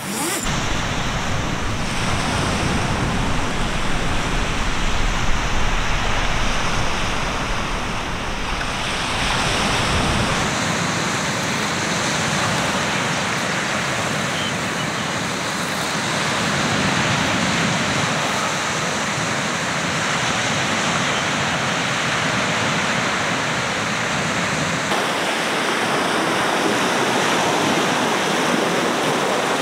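Sea surf washing onto a beach: a steady rushing noise that swells and eases slowly. There is extra low rumble in roughly the first ten seconds, and the sound changes abruptly about ten seconds in and again near the end.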